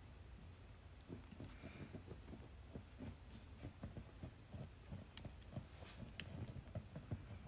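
A Maltipoo puppy digging and scratching with its front paws at a fleece cushion and blanket in its bed: a faint, irregular run of soft scratches and thumps, several a second, starting about a second in. It is the puppy's sleepy nesting routine, packing down its bedding before lying down.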